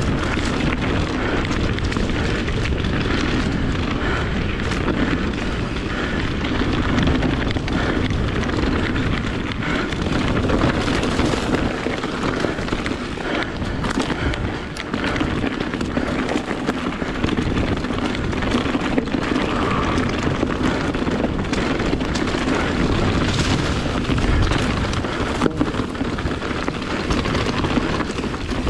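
Kona Process 153 mountain bike riding fast down a dirt singletrack: a steady rush of wind on the microphone and tyre roar over dirt and leaves, with frequent knocks and rattles from the bike over bumps and roots.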